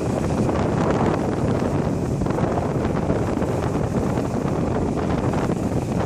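Sea waves washing ashore in a steady rush of noise, with wind buffeting the microphone.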